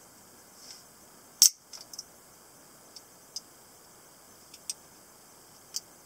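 Automatic stiletto switchblade snapping open with one sharp metallic click about a second and a half in, followed by several lighter clicks as the knife is handled.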